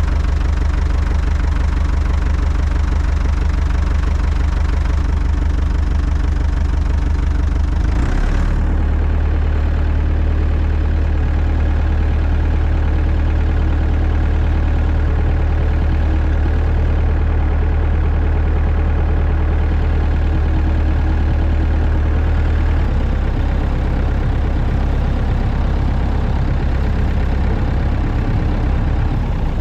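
Small gasoline engine running steadily and loud, its note shifting about eight seconds in and again near the 23-second mark.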